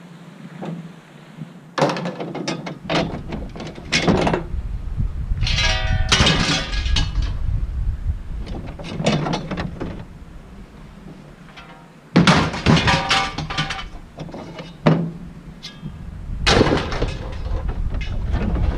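Pieces of scrap metal being tossed onto a pile, clattering and clanging in several bursts, a few of them ringing briefly, over a low rumble that comes and goes.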